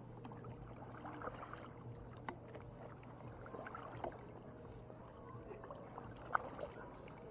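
Paddle strokes through the water beside an inflatable paddleboard: irregular splashing and dripping with a few sharp knocks, the loudest a little after six seconds in, over a low steady hum.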